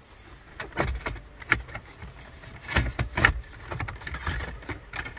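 Plastic trim pieces around a Subaru Outback's gear shifter being handled and lifted, giving a run of irregular plastic clicks, knocks and rattles. The sharpest knocks come a little past halfway.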